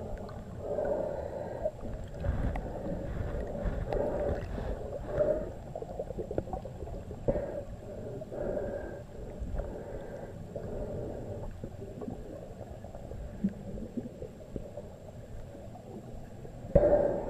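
Muffled water sloshing and gurgling with scattered light knocks, picked up underwater through a GoPro's waterproof housing.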